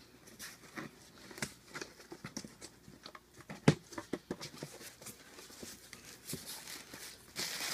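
Cardboard shipping box being opened by hand: scattered clicks, taps and scrapes as the stapled flaps are worked loose, with one sharp snap a bit past halfway and a burst of rustling near the end as the flaps open onto plastic wrapping.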